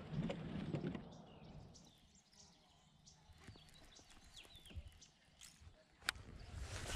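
Quiet creekside sounds: a rustling noise in the first second, then a few short faint bird chirps, and a single sharp click about six seconds in.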